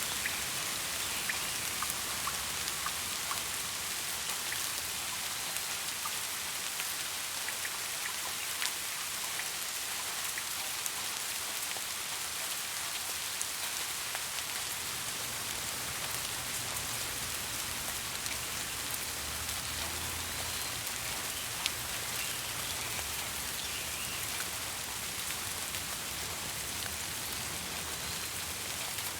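Steady rainfall, a continuous hiss of rain with scattered individual drops ticking on surfaces.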